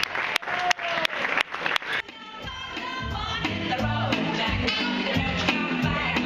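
A crowd clapping and calling out with scattered sharp claps, cut off abruptly about two seconds in by a recorded song with a steady bass line and singing.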